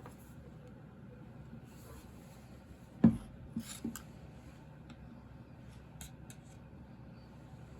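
Handling noise of tools and chainsaw parts being worked on: one sharp knock about three seconds in, two lighter knocks just after it, then a few faint clicks.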